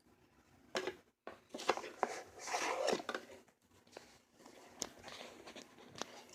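Box contents being handled and unpacked: rustling and crinkling with scattered clicks and taps. The rustling is loudest from about one and a half to three seconds in.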